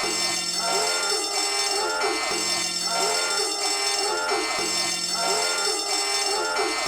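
A homemade alarm sound: a short looping pattern of pitched notes with quick pitch bends over a low note at the start of each cycle. It repeats about every two and a quarter seconds, three times over.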